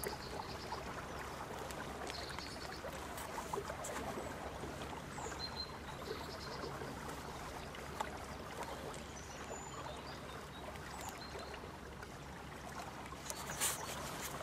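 Quiet river ambience: a steady low rush of moving water around the boat, with a few small clicks and knocks from handling the baited hook rig, the loudest near the end, and some faint high chirps.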